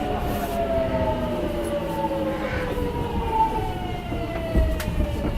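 GTO-VVVF inverter traction motor whine of a Nagoya Sakura-dori Line 6000-series subway car. Several tones glide down together steadily in pitch as the train slows, over the running rumble of the car, with a sharp click near the end.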